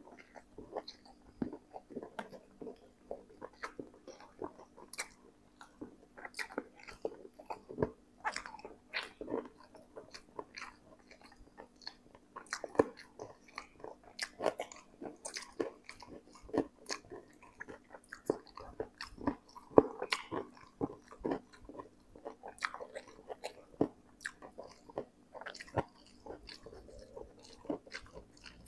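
Close-miked mouth sounds of a man eating crispy smashed fried chicken and spicy instant noodles: steady open-mouthed chewing with frequent wet lip smacks, sharp clicks and occasional crunches. A faint steady hum runs underneath.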